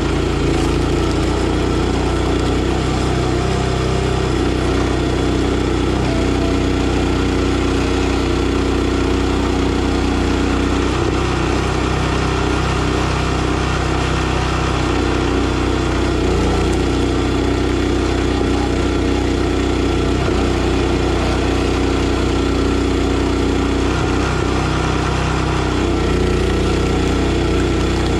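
NorthStar 37-ton log splitter's gas engine running steadily, its note shifting slightly a few times.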